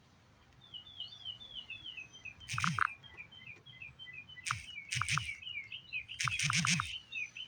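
Birds chirping: a quick, steady run of short high chirps, with several louder, sharper calls breaking in at intervals.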